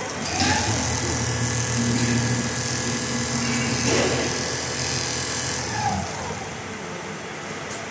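Rotating-head computerised sewing machine stitching heavy quilted jacket material. It winds up just after the start, runs steadily with a high whine, then winds down about six seconds in to a lower hum.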